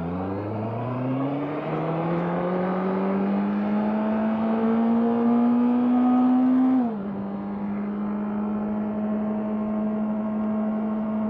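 Honda CBR650R's inline-four engine pulling under acceleration, its note rising steadily, then dropping a step about seven seconds in and holding a steady pitch.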